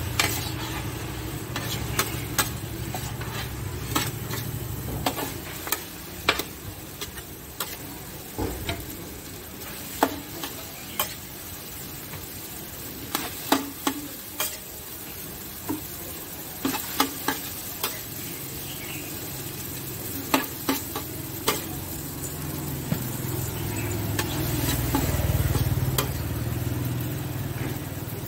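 Pad thai frying on a large flat steel pan: noodles sizzling steadily while a metal spatula scrapes and clacks against the pan in irregular strikes. A low rumble sits under it at the start and swells again near the end.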